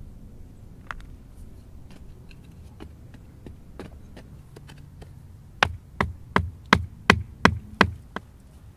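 A run of about seven sharp knocks, nearly three a second, from something hard striking rock or hard-packed red earth as it is broken up in a digging pit.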